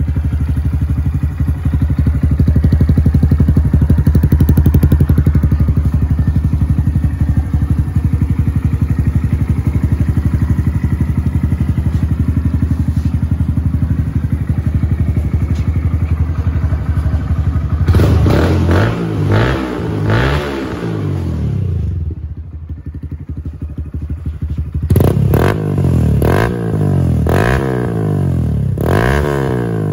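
2018 Honda Grom's 125 cc single-cylinder four-stroke engine breathing through a Yoshimura full exhaust with carbon muffler, idling steadily. About eighteen seconds in it is blipped through a few quick revs, drops back briefly, then revved again in a string of quick blips near the end.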